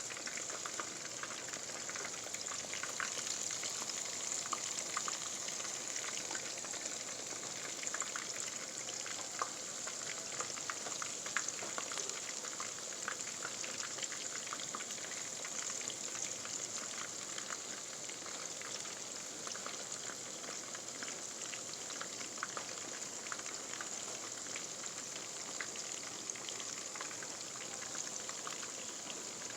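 Food frying in hot oil: a steady sizzling hiss with many small crackling pops, thinning out somewhat in the second half.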